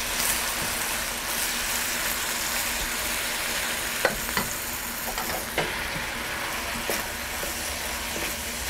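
Carrot sticks and broccoli florets sizzling in a hot wok, stirred with a wooden spatula, with a few light taps of the spatula against the pan.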